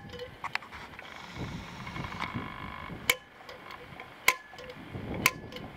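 Three sharp metallic clicks about a second apart, made by a center punch marking drilling points on the aluminium-alloy head of a kitchen meat hatchet.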